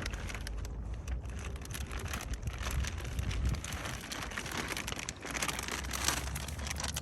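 Wind buffeting the microphone as a steady low rumble, with scattered crackles and rustles on top.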